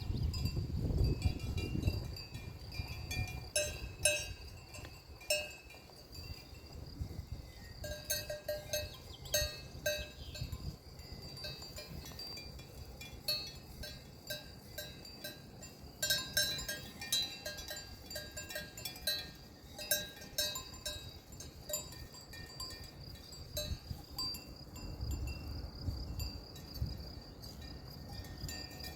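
Cowbells on grazing alpine cattle clanking irregularly, the bells ringing on after each clank. A low rumble comes in at the start and again near the end.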